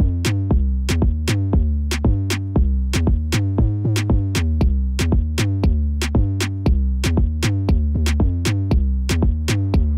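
Electronic background music: a drum-machine beat of about three sharp hits a second over heavy, steady bass.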